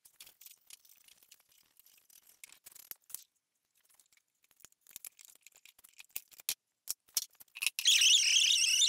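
Faint scattered clicks and taps of a screwdriver working on a golf-cart pedal assembly. Then, near the end, a pneumatic die grinder fitted with a wire wheel starts up and runs with a loud, high-pitched, wavering whine, wire-brushing the aluminum pedal plate clean.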